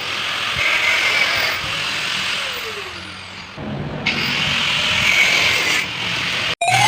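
A workshop power tool running with a harsh steady whir. About two and a half seconds in it winds down with a falling whine, then starts again, and it breaks off abruptly near the end.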